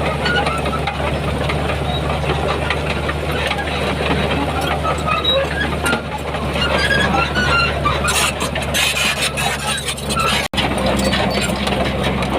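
Heavy diesel engine of earthmoving machinery running steadily, with short high squeaks and clanks over it. The sound cuts out for an instant about ten and a half seconds in.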